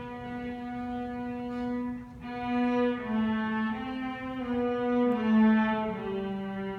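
Orchestra strings with bowed violins playing slowly: a single note held for about three seconds, then a slow melody moving step by step and settling on a lower held note near the end.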